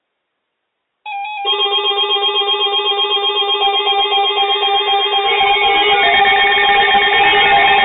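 An electronic warbling alert tone from a weather radio receiver, starting abruptly about a second in after dead silence. Several tones flip rapidly back and forth between two pitches with a fast, regular pulse, and it grows louder about halfway through.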